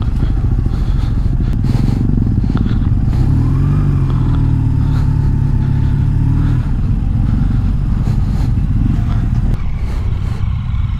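Motorcycle engine running at low speed as the bike rolls over rough grass. Its note climbs a little about three seconds in, holds, then drops away about six and a half seconds in as the rider eases off.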